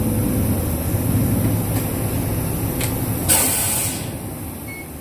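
Interior running sound of a 2005 Isuzu Erga KL-LV834L1 city bus, its V8 diesel engine drumming steadily under way. A short hiss of air comes a little past three seconds in, and the engine sound then eases off and grows quieter.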